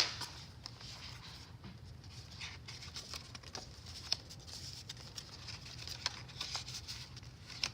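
Paper pages of a handmade junk journal being handled and turned, rustling, with scattered light clicks and taps and one sharp click at the start.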